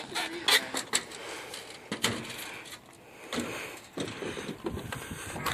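Footfalls and landing thumps of a person running and jumping on a playground's wooden platform and play equipment, a string of sharp knocks with the loudest about half a second in.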